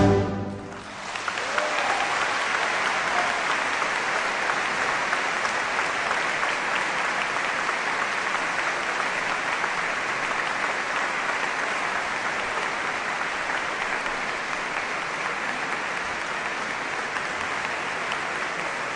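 A symphonic wind band's final chord dies away in the first second, then a large audience applauds steadily.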